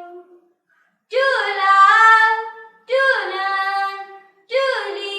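Children singing a slow song with long held notes, in three phrases: the first fades out shortly after the start, then after a brief pause new phrases begin about a second in and again near the end.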